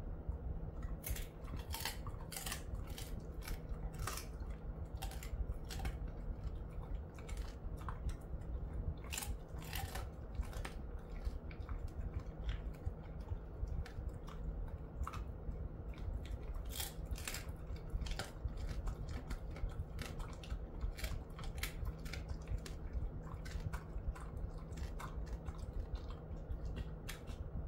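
Jindo-mix dog chewing a hard treat: irregular crisp crunches and chomps, now in quick clusters, now spaced out, with no break.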